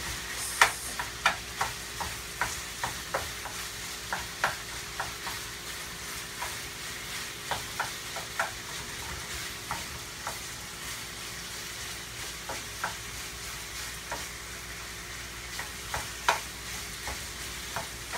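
Diced chicken browning and sizzling in a skillet, with a wooden spoon stirring it and knocking against the pan in irregular clicks.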